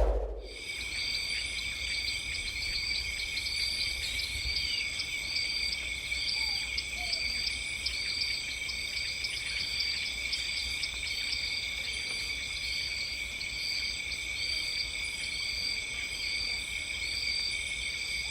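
A chorus of insects: several trill steadily at different high pitches while one chirps in an even rhythm, a little more often than once a second.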